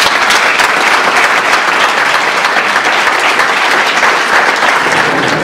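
Seated audience applauding, many hands clapping together in a steady, dense applause.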